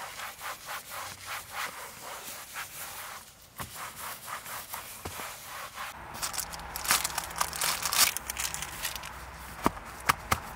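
Microfiber towel wiping a leather car seat in quick back-and-forth rubbing strokes, about three a second. About six seconds in, the strokes turn crisper and louder.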